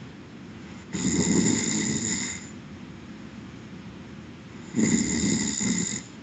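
A sleeping person snoring: two snores about four seconds apart, each a little over a second long, with quieter breathing between them.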